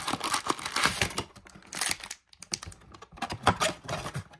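Cardboard trading-card blaster box and its wrapped card packs being handled: irregular light clicks, taps and rustling, with a short pause about halfway through.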